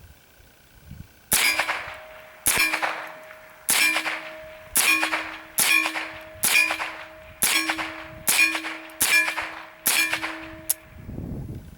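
Taurus Model 63 semi-auto .22 LR rifle firing about ten shots at roughly one a second, each shot followed by the clang of a steel target ringing out. The shooting stops about a second before the end.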